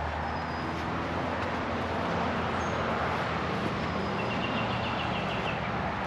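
Steady low rumble and hiss of outdoor background noise, like distant traffic, with a few brief high bird chirps and a short rapid bird trill from about four seconds in.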